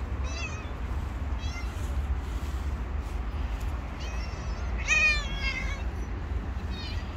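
A cat meowing about five times in short, high-pitched calls, the longest and loudest one about five seconds in, over a steady low rumble.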